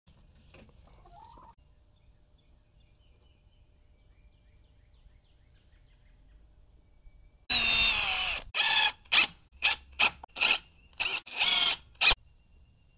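DeWalt 20V MAX XR cordless impact driver running in one burst of about a second, then in a string of short trigger pulses as it drives screws through a steel strap hinge into a wooden post. Before the driver starts, about seven seconds are near quiet.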